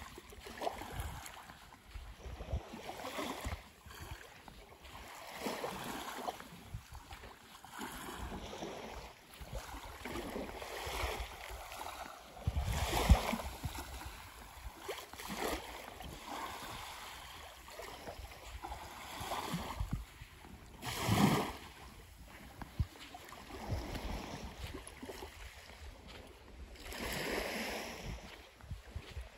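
Small sea waves lapping and washing on a sandy shore, swelling and fading every second or two, with wind rumbling on the microphone.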